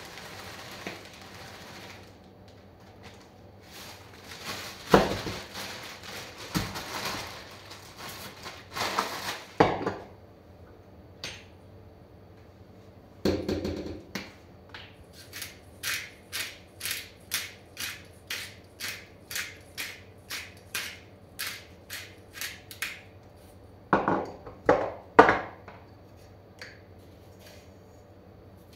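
Spices being added by hand to a bowl of köfte mince: rustling and a few knocks of a jar being poured, then a run of evenly spaced clicks, about two a second, from a hand-turned spice grinder, and a few louder knocks of a jar near the end.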